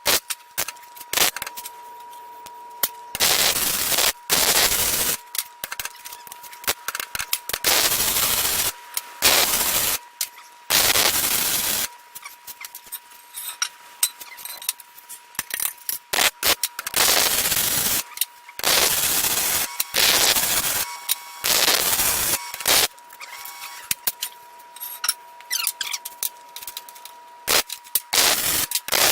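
MIG welder laying short tack welds on steel, each weld a crackling, spattering burst of one to two seconds, over a dozen in turn with short pauses between. A faint steady tone hums underneath.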